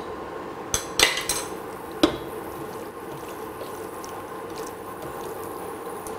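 Silicone spatula stirring and scraping minced mutton in a stainless steel pressure cooker, with a few sharp knocks against the pot in the first two seconds. A steady hum runs underneath.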